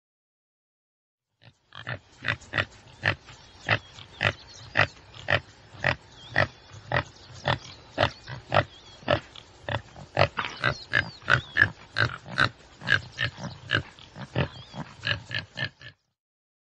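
Tsessebe antelope giving a long run of short grunts, two or three a second, starting about a second and a half in and stopping shortly before the end.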